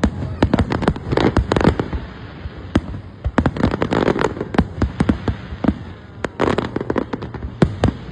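Fireworks going off in quick, irregular clusters of sharp bangs and crackles, several to the second.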